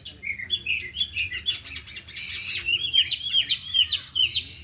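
Oriental magpie-robins (kacer) singing: a quick run of varied whistled phrases, chirps and glides, with a brief harsh rasping note a little past two seconds in.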